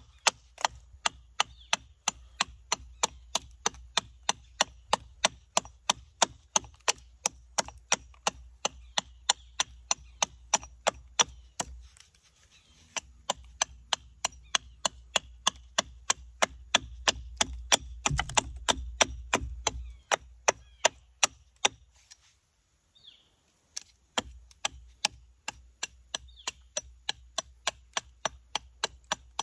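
Walnut being hand-carved for a spoon: a quick, even run of sharp wooden cuts, about three a second, with two brief pauses.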